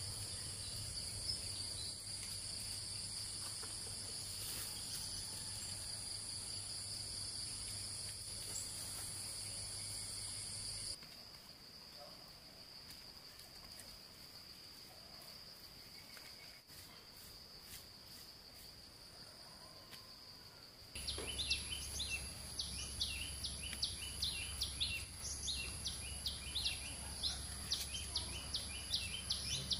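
Steady high-pitched drone of insects. It drops abruptly to a quieter, thinner drone about 11 seconds in. About 21 seconds in it comes back louder, with a fast run of repeated chirps over it.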